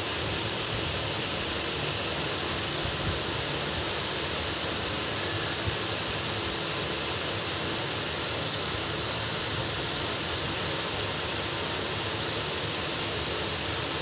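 Steady, even hiss of noise with no speech.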